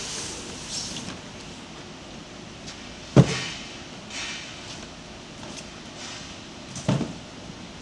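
Cardboard shipping box being handled and lifted off: scraping and rustling of cardboard, with a sharp thump about three seconds in and a smaller one near the end.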